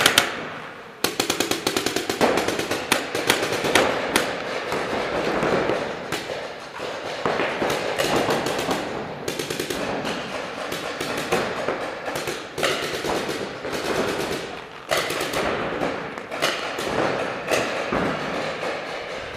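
Paintball markers firing in rapid strings of shots, echoing in a large indoor hall.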